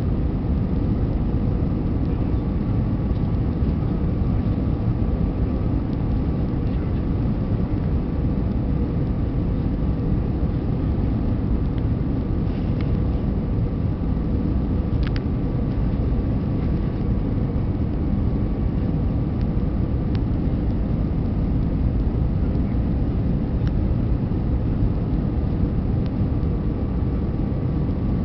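Airbus A320 cabin noise on approach: a steady low rumble of the engines and airflow, with faint steady tones over it. A brief click about halfway through.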